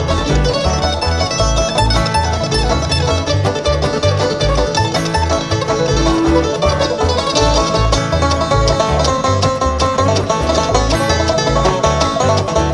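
Live bluegrass string band playing an instrumental passage: fast picked banjo and other plucked strings over a steady, alternating bass line.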